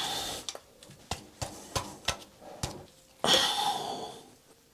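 Rubber crankcase breather hose on a Yamaha Virago 535 being worked loose by hand. There are about half a dozen small clicks and knocks, and two short rasping rubs, one at the start and a longer one about three seconds in.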